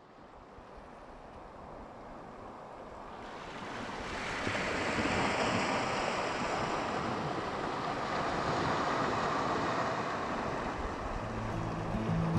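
Sea waves washing on a sandy beach, a steady rushing hiss that fades up from silence over the first few seconds. Music comes in just before the end.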